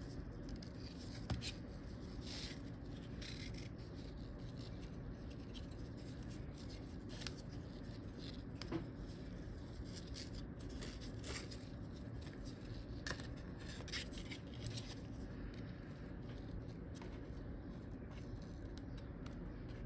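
Faint, irregular light clicks and rubbing from hands handling a wristwatch, over a steady low room hum.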